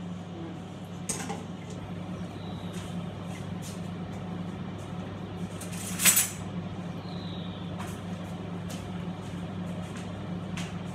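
Kitchen work at a counter: scattered light knocks and clicks of dishes and utensils over a steady low hum, with one louder clatter about six seconds in.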